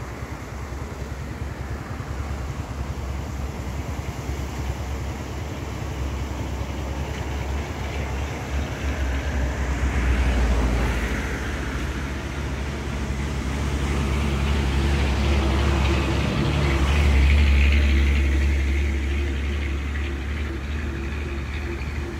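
Road traffic on a bridge: a steady low rumble of engines and tyres, swelling louder as vehicles pass about halfway through and again about three-quarters of the way through.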